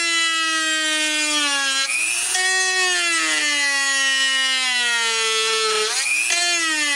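Dremel rotary tool running at high speed, bevelling down the edge of a speaker's tweeter slider board. Its whine sags slowly in pitch as it cuts and jumps back up twice.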